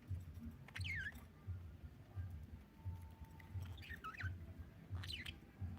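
Budgerigar chirping in short, scattered calls: one sliding down in pitch about a second in, a cluster around four seconds in and another about five seconds in, over a faint low pulsing.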